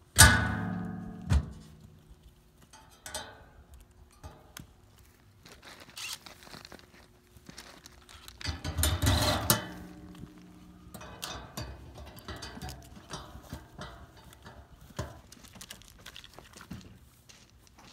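Steel lid of a pad-mounted transformer cabinet shut with a ringing metal clang, with a second knock about a second later. Scattered clicks, knocks and rattles of hardware and hand tools follow, with a louder stretch of clatter about halfway through.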